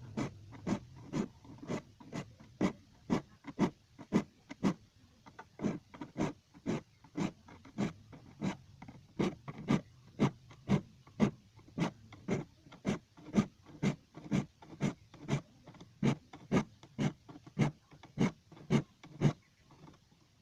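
Metal file strokes on a hand saw's teeth, sharpening them: short scraping strokes in a steady rhythm of about two a second.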